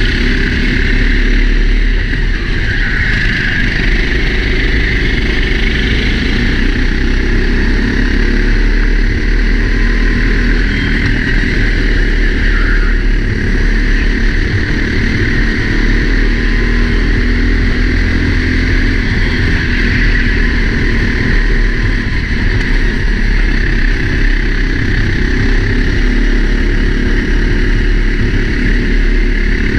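Four-stroke Sodi racing kart engine running at race speed, heard through a helmet-mounted camera with wind rushing over the microphone. The sound stays loud and steady.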